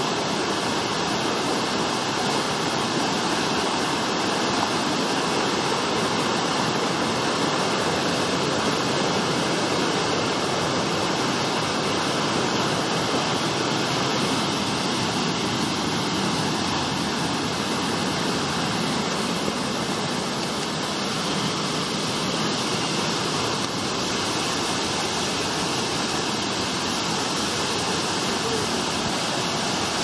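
Fast-flowing river rushing over rocks and small cascades in white water, a steady roar with no change.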